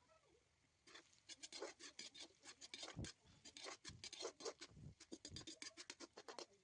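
Faint, fast run of short scraping and scratching strokes, several a second, with a few duller knocks mixed in around the middle.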